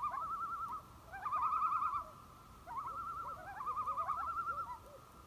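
Common loons giving their wavering tremolo call, several voices overlapping, in three bouts: one ending just under a second in, one short bout, then a longer one.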